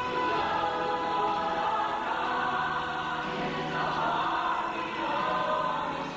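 Church youth choir singing, voices holding long notes.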